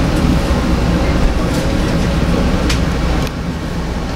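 Metro-North M2 electric multiple-unit train running at speed, heard from inside the car: a steady low rumble of wheels and running gear on the rails, with a couple of sharp clicks.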